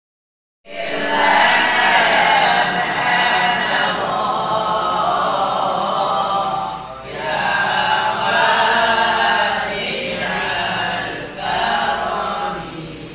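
A group of boys' voices chanting a wirid recitation together in unison. It comes in suddenly under a second in, after a brief silence, and runs in long phrases with short breaks between them.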